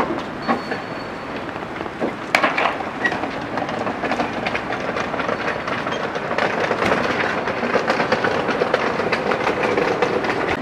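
Wooden street-food stall cart rattling and clattering as it is wheeled over brick paving, with a couple of sharp knocks in the first few seconds. The rattle grows louder about halfway through.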